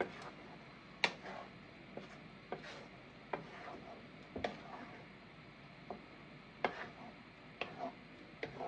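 Wooden spoon stirring a thick cream sauce in a frying pan, knocking and scraping against the pan in irregular taps.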